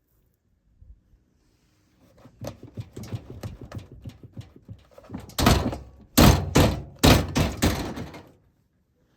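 Beko washing machine, run without its counterweights, knocking and banging: quick knocks grow louder into three heavy bangs, then stop.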